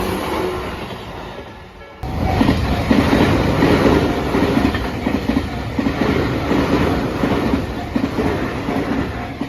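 A train passing close by, its wheels clattering over the rail joints. The sound fades over the first two seconds, then cuts in much louder and runs on with a steady rhythmic clatter.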